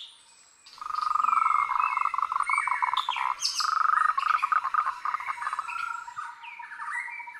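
A chorus of frogs trilling with birds chirping and whistling over them, starting about a second in.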